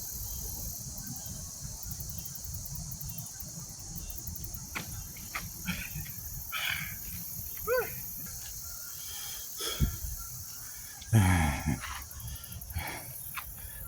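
Steady high-pitched chorus of insects such as crickets, over a low rumble, with scattered light clicks. Two short pitched voice-like sounds falling in pitch break in, the louder about eleven seconds in.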